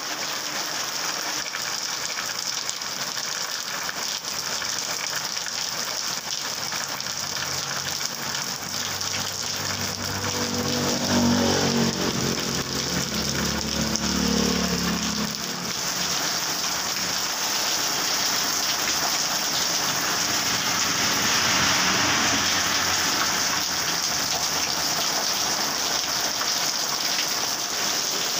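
Heavy rain pouring onto a wet road and puddles, an even hiss of countless drops. About nine seconds in, a small motorcycle engine passes, rising over the rain and then cutting away after about six seconds.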